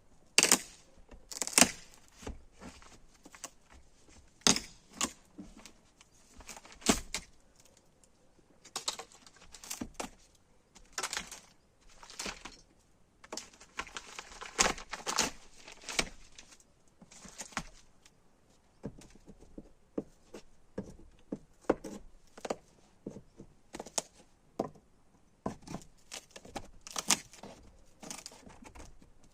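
Irregular clicks, taps and rattles of small objects being handled, with a few louder knocks and short rustles.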